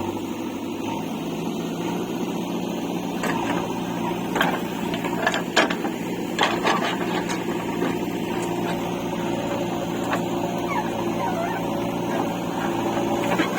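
Diesel engine of heavy digging machinery running steadily, with scattered metallic clanks and knocks, most of them between about three and seven seconds in.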